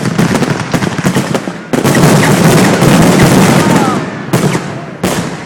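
Fireworks display: a rapid salvo of crackling aerial shell bursts, swelling into a heavier volley about two seconds in, with two more sharp bangs near the end.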